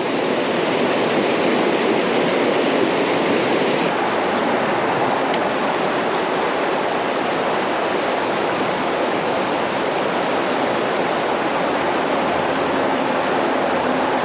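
Creek water rushing steadily over rocks in a current, a continuous close splashing hiss.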